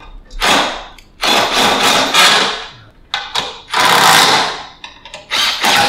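A four-stroke lawn mower being worked on by hand, giving five rasping, whirring mechanical bursts, each up to about a second long, with short gaps between them.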